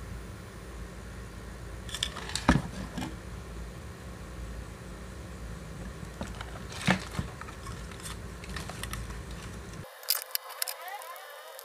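Handling noise from a small amplifier board, its wires and a wooden speaker box being picked up and moved, with a few sharp clicks and knocks over a low steady rumble. The rumble drops out abruptly near the end, leaving only light clicks.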